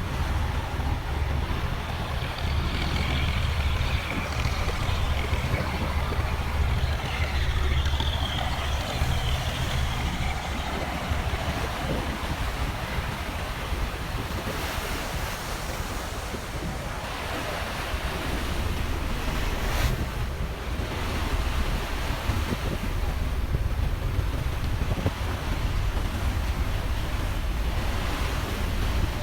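Passenger ferry under way: a steady low engine drone with the rush of water and wind noise on the microphone.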